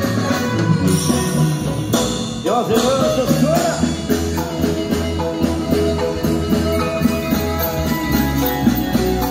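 Live marimba band music: marimba melody over a steady drum-kit beat, played loud.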